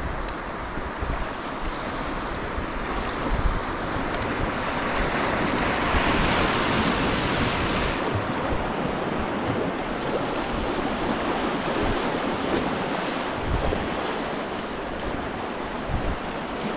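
Whitewater rapids rushing around an open canoe running down the river, the rush growing louder in the middle, with low thumps of wind on the microphone.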